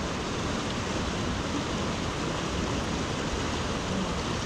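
Mountain river rushing steadily through a boulder rapid, a constant even roar of whitewater.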